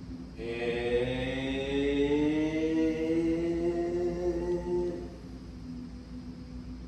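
A man's voice drawing out a long sung or hummed note, like a held "aaand", for about five seconds, rising slowly in pitch and fading out near the end.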